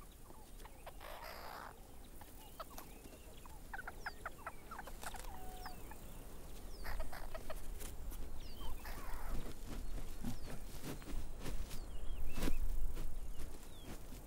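Meerkats calling at their burrow: a scatter of short chirps and clucks that gets busier as it goes on, with a few brief scratchy scuffs in between.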